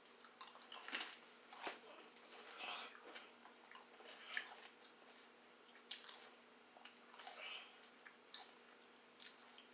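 Faint, irregular crunches of a tortilla chip with salsa being chewed, roughly one every second, over a faint steady hum.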